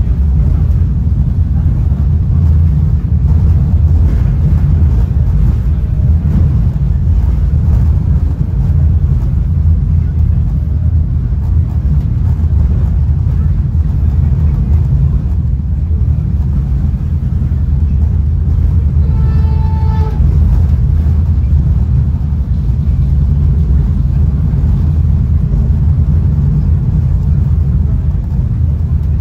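Steady low rumble of a Caltrain Gallery bilevel passenger car running at speed, heard from inside the car: wheels on rail and the car's ride noise. A brief pitched tone sounds once, about two-thirds of the way through.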